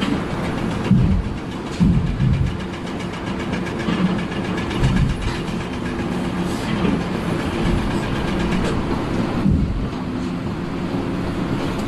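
Steady mechanical rumble with a low hum and occasional low knocks.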